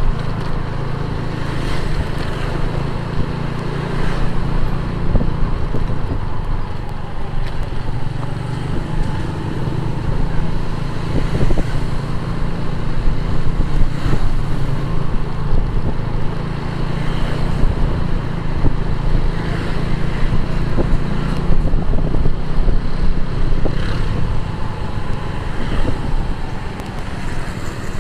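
Motorcycle engine running steadily while riding, with tyre and surrounding road-traffic noise.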